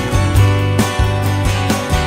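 Background music with a steady beat: strummed guitar over a strong bass line.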